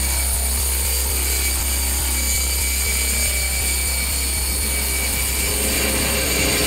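Makita angle grinder with a 2-inch turbo diamond core bit running steadily, the bit grinding dry through granite.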